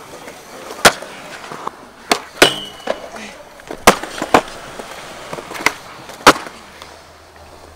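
Skateboard on concrete: wheels rolling with a series of sharp clacks as the board is popped and lands tricks, seven or so spread through the clip, with the rolling fading out near the end.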